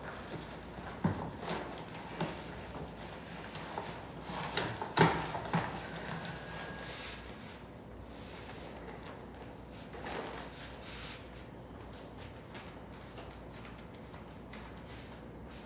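Scattered knocks and taps of objects being handled, over a steady hiss, with one louder knock about five seconds in and sparser, quieter taps in the second half.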